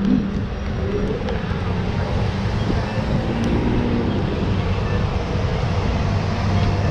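Vehicle engine running amid street traffic: a steady low hum under continuous road noise, with the hum dropping lower in pitch about halfway through.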